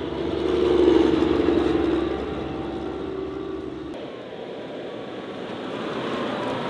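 Eight-wheeled armoured vehicle's engine and tyres driving by on a dirt road, loudest about a second in, then fading. About four seconds in, the sound changes to a lighter military vehicle driving along.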